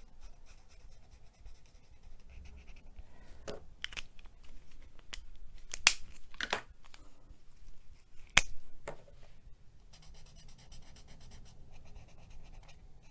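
Markers scratching faintly on paper as a small stamped image is coloured in. Several sharp clicks come in the middle.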